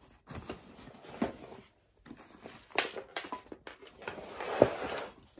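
Canvas army haversack being handled and its flap pulled open: cloth and strap rustling, with a few light knocks as the packed items shift.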